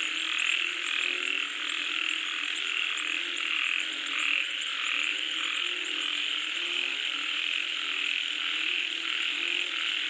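A chorus of many frogs calling at once in a dense, steady din. Short low notes recur about once or twice a second underneath, with a fast high chirping over the top.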